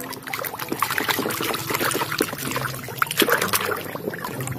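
Water trickling and splashing over a muddy plastic toy gun as it is washed, with many small scattered clicks and taps.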